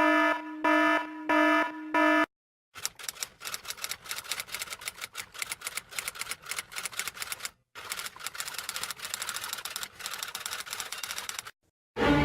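A short sound-effect sequence: an electronic buzzer-like tone pulses four times over about two seconds. After a brief silence comes a long run of rapid, irregular typing clicks, like typewriter keys, with one short pause about halfway through.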